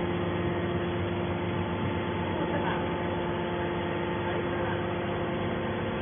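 Hydraulic scrap metal baler's power unit running, a steady hum of several constant tones with no strokes or impacts.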